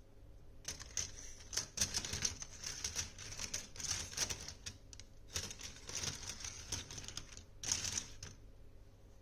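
A pile of old SIMM memory modules, small circuit boards, clattering and clicking against each other as hands rummage through them: a light, irregular run of clicks, with a louder cluster near the end.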